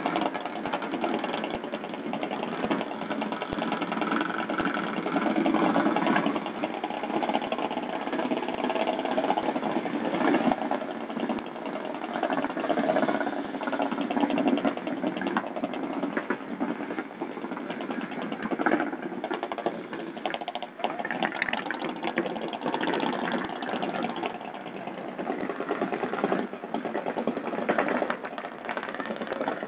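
An engine idling with a fast, even ticking beat that swells and eases a little in level.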